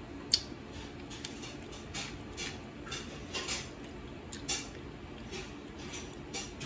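Scattered light clicks and scrapes of a small fork and fingers picking meat from boiled crab and lobster shells, with one sharp click about a third of a second in.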